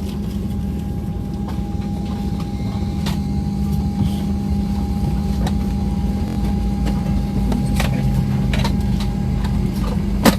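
Airliner cabin noise: a steady engine and airflow drone with a low hum and a thin constant whine. A few sharp clicks or knocks break through, the loudest near the end.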